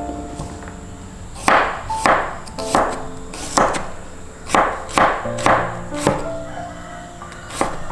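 Kitchen knife slicing garlic cloves on a bamboo cutting board: about ten sharp chops at an uneven pace, starting about one and a half seconds in. Background music with held notes plays under it.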